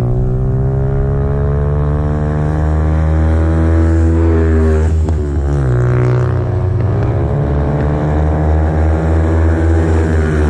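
Several mini GP race motorcycles running hard round the circuit, their engines revving and shifting so the pitch keeps rising and falling, with sudden swings as bikes pass close by. A steady low engine drone runs underneath.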